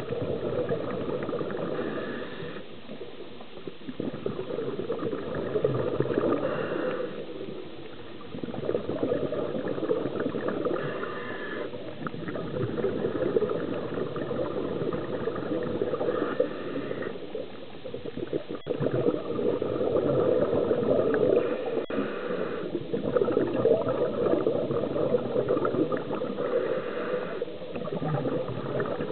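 Scuba diver breathing through a regulator underwater: a long rush of exhaled bubbles alternating with a short breath in, about one breath every five seconds.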